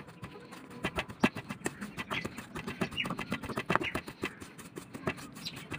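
A round stone crushing garlic with turmeric powder in a small steel bowl: irregular sharp knocks and scrapes of stone against the metal.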